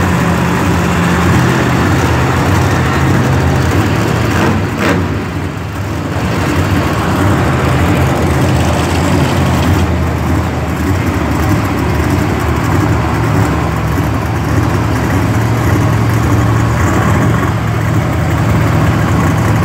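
Brodozer monster truck's supercharged V8 idling loud and steady, with a brief dip in level about five seconds in.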